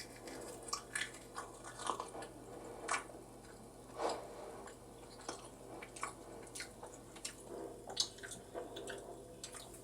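Close-miked eating: irregular bites and chewing, heard as scattered sharp clicks and crunches, the loudest about eight seconds in.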